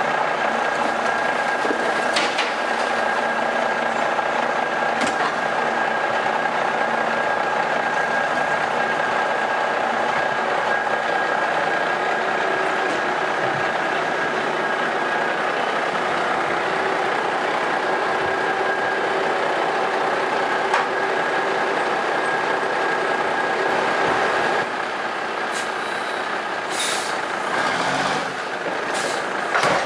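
A 1985 White front-loader garbage truck's diesel engine runs steadily under load with a constant high whine while its hydraulic forks lift and empty a dumpster, with a few sharp metallic clanks. Near the end the sound drops and there are a few short hisses.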